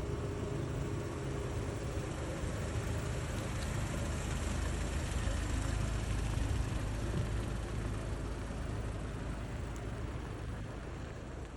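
Car moving slowly: a steady low engine and road rumble that eases slightly near the end.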